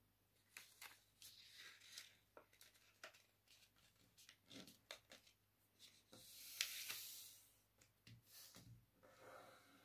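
Faint rustling and creasing of a sheet of paper being folded and pressed flat by hand, with scattered small taps and scratches and one longer, louder swish of paper about six to seven seconds in.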